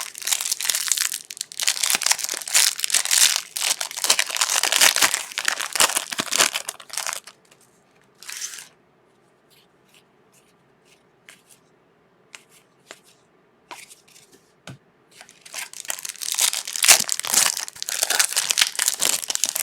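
Trading card pack wrappers being torn open and crinkled, in two long spells, with a few soft clicks of cards being handled in the quieter stretch between them.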